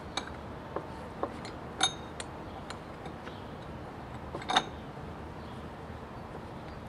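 Small metal fastener hardware (washers on an all-thread rod) clinking and tapping as it is fitted to a valve flange: scattered light clicks, a couple with a short ringing tone, the loudest about four and a half seconds in.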